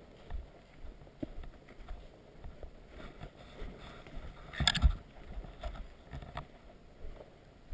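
Scattered knocks, rustles and thumps from a player moving about with the camera, over a low rumble. Just under five seconds in comes a short, louder cluster of rapid sharp clicks.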